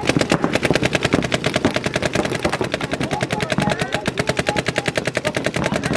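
Paintball markers firing in long rapid strings, more than ten shots a second, the shots of several guns running together.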